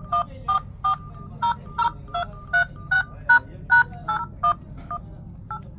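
A smartphone sounding a quick electronic melody of short beeping notes, about two to three a second, some notes sounding two pitches at once.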